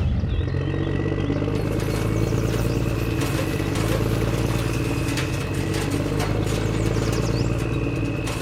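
A small motor running steadily at an even speed, with a light clatter over it.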